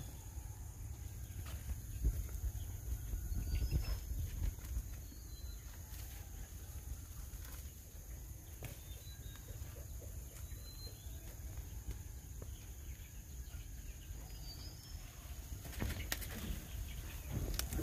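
Footsteps and phone handling on a concrete path, with scattered knocks and clicks over a low rumble. There are a few faint, brief bird chirps and a steady high-pitched hum.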